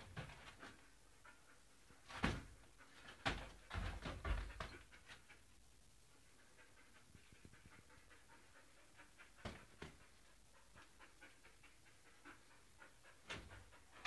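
Belgian Malinois dog panting softly, with a few brief knocks about two, three and nine and a half seconds in.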